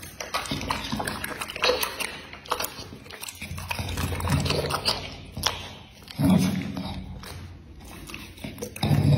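A pit bull-type dog eating from a hand: wet mouth smacking, licking and crunchy chewing clicks. A louder low humming sound comes in about six seconds in and again near the end.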